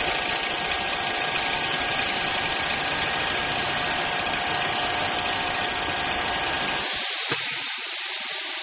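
CNC drilling and cutting machine running steadily, a mechanical drone with a few held tones. About seven seconds in the low rumble stops, leaving a steady hiss, and there is a single click shortly after.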